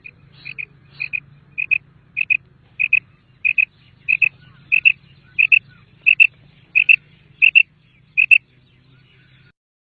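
Common quail calling: a short two-note call repeated steadily about fourteen times, roughly one and a half a second, growing louder as it goes, over a faint low hum.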